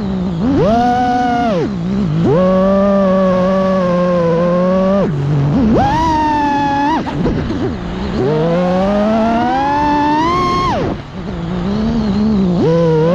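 FPV freestyle quadcopter's brushless motors whining, the pitch jumping up on each throttle punch, holding, and dropping away on throttle cuts, several times over, with one long climbing whine that falls off suddenly.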